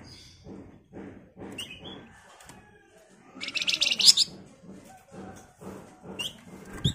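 A caged Javan fulvetta (flamboyan) gives a loud burst of rapid, chattering high notes about halfway through, with a few single short chirps before and after. Soft thuds about twice a second run through the first half, and a sharp thump comes right at the end.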